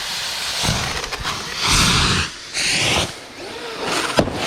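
Fireworks taped to an RC truck going off: two loud hissing rushes, each about half a second long, a couple of seconds in, then a sharp bang near the end.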